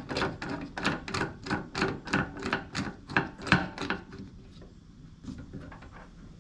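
Fast, even clicking, about four clicks a second, as a hose-end fitting is turned by hand on a port of the fuel tank's bolted top plate. It stops about four seconds in.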